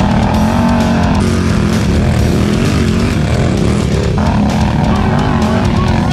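Two Can-Am Outlander XMR ATV V-twin engines, a 1000 and an 850 with aftermarket exhausts, held at high revs under load in a tug of war, pulling against each other with the tyres spinning. Rock music with electric guitar plays over them.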